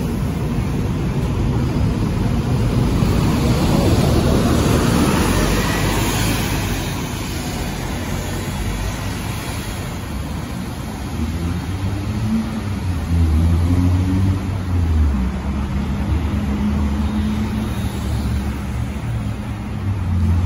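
Scania K230UB single-deck bus's five-cylinder diesel engine accelerating away from a stop, loudest in the first several seconds and then fading as the bus drives off. Other road traffic passes in the second half, with engines rising and falling.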